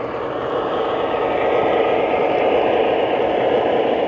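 Model train locomotive running around the layout track, a steady rumble that grows a little louder after the first second as it comes nearer.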